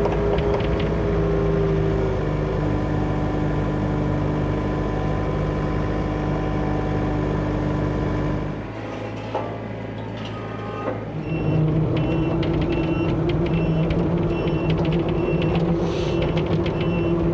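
Diesel engine of a John Deere excavator running steadily. It eases off about nine seconds in, then picks up again about two seconds later. From then on a travel alarm beeps over it in a steady repeating pattern.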